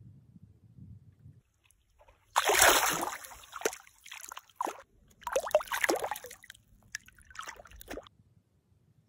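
Shallow lake water sloshing and splashing over a sandy bottom as bare feet wade through it, in three bursts about a second apart.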